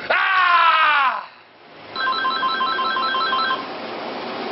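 A man's loud shout, one long yell falling in pitch and breaking off about a second in. About two seconds in, a phone rings with a fast electronic trill of paired tones, lasting about a second and a half.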